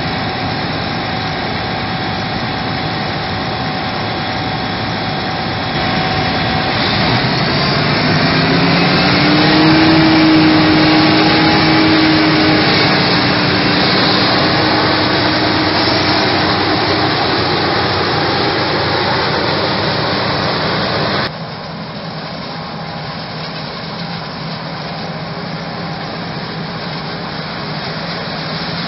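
Krone Big X 1100 forage harvester running under load while chopping maize: the big V12 diesel and chopping drum make a steady mechanical noise, with a silage tractor running alongside. About a quarter of the way in it grows louder with a rising whine, and about two-thirds through it drops suddenly to a quieter, steadier running.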